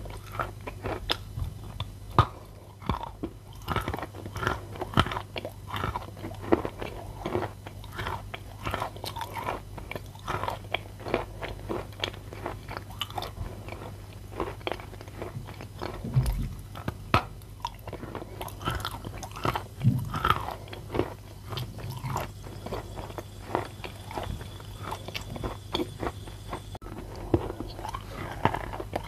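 Biting and chewing a block of chalk: a dense run of crisp crunches and snaps, several a second, with a few duller thuds in the middle, over a steady low hum.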